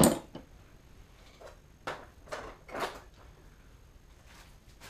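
Metal needle-nose pliers set down onto a pile of metal hand tools with a sharp clack, followed by a few softer knocks and rustles of items being handled about two to three seconds in.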